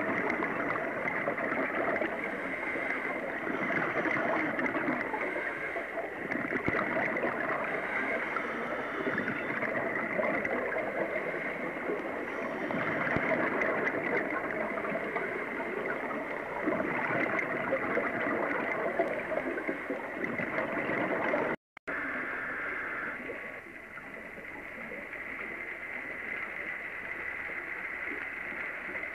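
Steady underwater hiss and gurgling picked up through a video camera's underwater housing. It cuts out for a moment about two-thirds of the way through and runs a little quieter afterwards.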